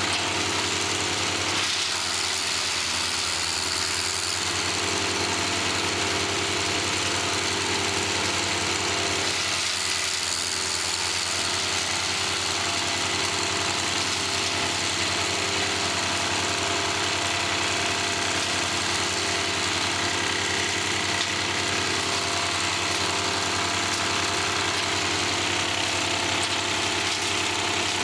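1998 Vermeer 1250 BC wood chipper running steadily, a constant engine drone with several steady tones and no change in loudness.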